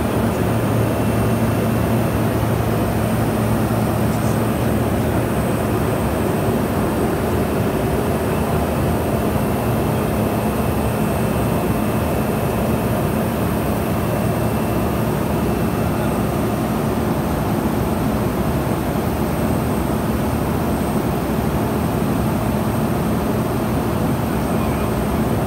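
Pilatus PC-12's single Pratt & Whitney PT6A turboprop engine and propeller running steadily in cruise, heard inside the cockpit: a constant low hum under a broad rush of airflow.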